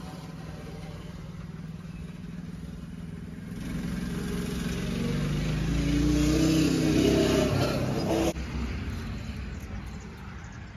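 A motor vehicle's engine running, growing louder over several seconds as it draws closer, then cut off suddenly about eight seconds in.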